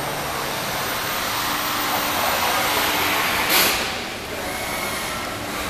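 A steady rushing noise with a faint steady hum beneath it, and a short louder rush about three and a half seconds in, after which it drops a little.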